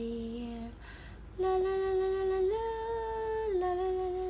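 A woman singing a slow, lullaby-like tune in long wordless held notes. The first note ends under a second in, she takes a breath, then holds a long note that steps up in pitch and back down again.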